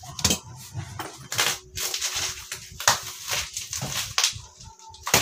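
Bubble wrap and packing material rustling and crackling in irregular bursts as a wrapped unit is handled, lifted out of its cardboard box and onto a bench.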